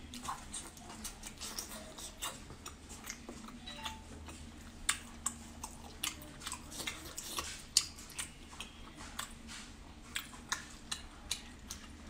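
Close-up eating sounds: wet smacking, sucking and chewing as sea snail meat is pulled from its shell and eaten, in irregular sharp clicks and smacks.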